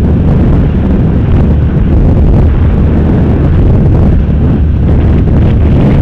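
Loud, steady wind rush buffeting the microphone of a helmet camera on a sport motorcycle at road speed, with the motorcycle's engine running under it.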